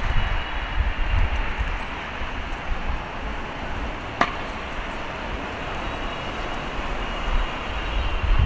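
Steady rumble and hiss of a moving vehicle or traffic, stronger at the start and end, with a single sharp click about four seconds in.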